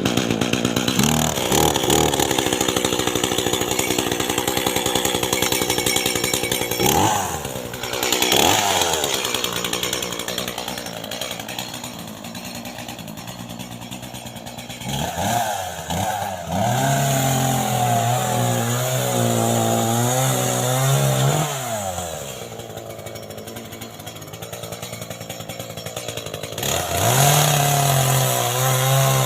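Gasoline chainsaw running at high revs while cutting, its engine pitch dipping and recovering several times, then running steadily lower under load before easing off to a quieter idle and revving up again near the end.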